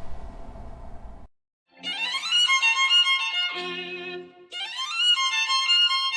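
Violin music: two phrases, each sliding up into held, wavering high notes over lower sustained tones. It comes in after a brief low room hum that cuts off abruptly about a second in.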